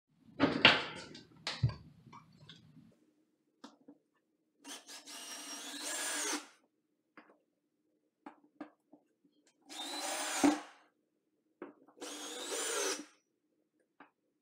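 Cordless drill driving deck screws into a plywood subfloor patch in three short runs of a second or so each, the motor pitch rising as it spins up. Knocks and clicks of the drill and screws being handled come between the runs, with a louder clatter near the start.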